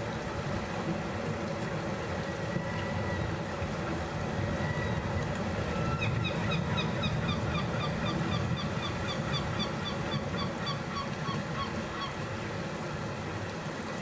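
Sea waves washing over a rocky shore, a steady low rush with some wind. About six seconds in, a bird starts a quick run of short, repeated calls, several a second, which lasts around six seconds.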